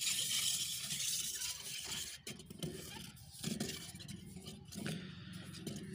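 A pipe being pushed by hand down into a metal well casing, scraping and knocking against it, with a hiss over the first two seconds.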